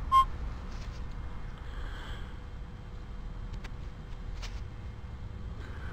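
A single short electronic beep from a metal detector, then a steady low rumble of wind and hand-handling noise close to the microphone with a few faint clicks.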